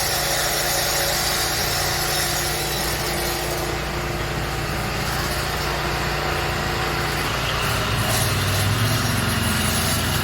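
Walk-behind concrete cutter running steadily as it saws road concrete, its engine note with a hiss of cutting noise above it; the engine tone shifts lower about eight seconds in.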